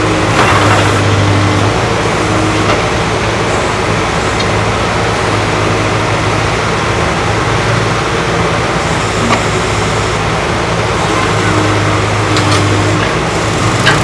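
Case 770 EX backhoe loader's diesel engine running steadily, its low hum swelling briefly about a second in and again near the end.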